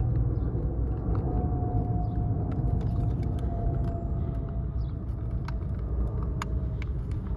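Steady low rumble with scattered light clicks and taps, a few of them sharper about five to six and a half seconds in.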